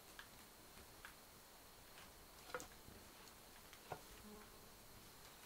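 Faint crackling of a wood campfire: a few sharp isolated pops over a low steady hiss, the two loudest about two and a half and four seconds in.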